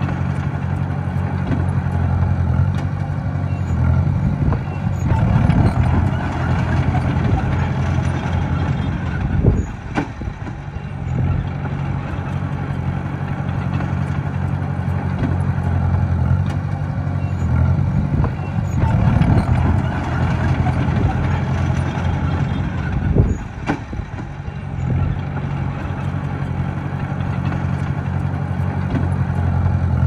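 Small Komatsu crawler bulldozer's diesel engine running steadily, swelling louder twice, with a sharp metal clank twice, about 13 seconds apart.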